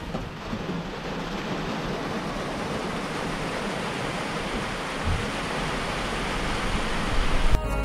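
Steady rain falling on the van, heard from inside it, with a few sharper taps near the end.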